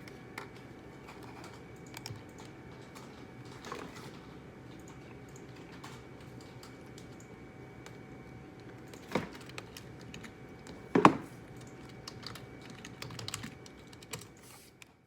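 Typing on a computer keyboard: scattered light key clicks, with two louder knocks about nine and eleven seconds in.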